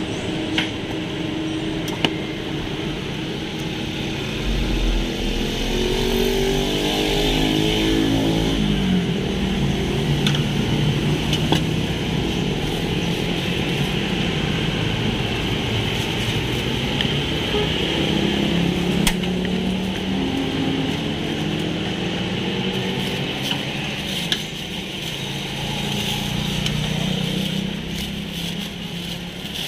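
Road traffic passing close by, engine notes rising and falling as vehicles go by. Now and then a sharp knock of a cleaver chopping on a cutting board cuts through.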